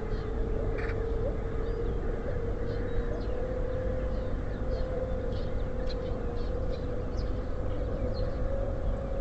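Small songbirds at a feeder giving scattered short, high chirps over a steady low rumble of city traffic. A steady mid-pitched hum runs underneath, rising slightly in pitch.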